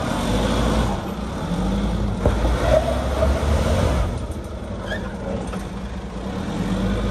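A 4WD's engine running at low revs as the vehicle crawls slowly over a rocky dirt track, with a few faint knocks from the tyres and body on the rocks. The engine note eases off a little about two-thirds in and picks up again near the end.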